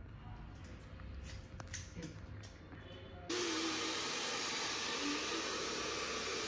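A hair dryer blowing at a salon. A quiet low hum with a few faint clicks, then about three seconds in the dryer starts suddenly: a loud, steady rush of air.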